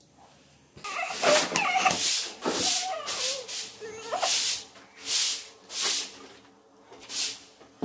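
Grass broom sweeping the floor in a run of brisk swishing strokes, with a short pause about six seconds in. A wavering voice-like sound runs over the first few strokes.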